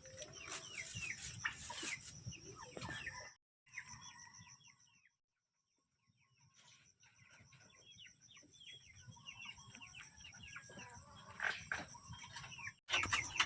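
Chickens clucking and giving many short, falling peeps, fairly faint. The sound nearly cuts out twice, briefly a few seconds in and for over a second mid-way, before the calls pick up again.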